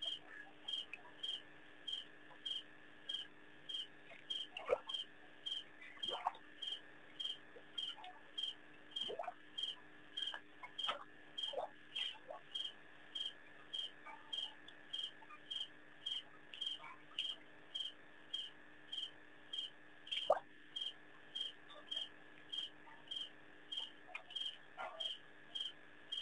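A cricket chirping steadily, about two chirps a second, over a steady high insect drone, with a few faint brief downward calls in between.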